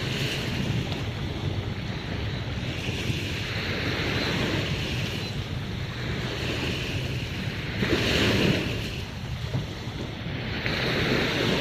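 Sea waves washing in on the shore, a wash swelling and fading every few seconds, the strongest about eight seconds in, with wind buffeting the microphone.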